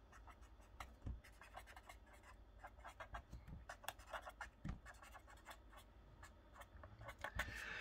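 Felt-tip marker writing words on paper: faint, short scratching strokes.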